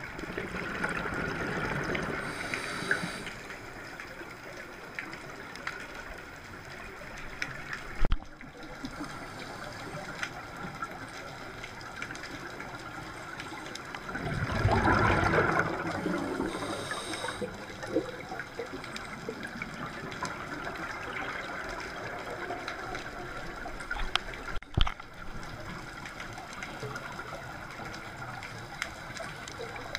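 Underwater sound picked up through a camera housing during a scuba dive: a steady watery hiss, with a diver's exhaled bubbles rumbling up loudest about halfway through and more softly near the start. Two sharp knocks, about a third of the way in and again near the end.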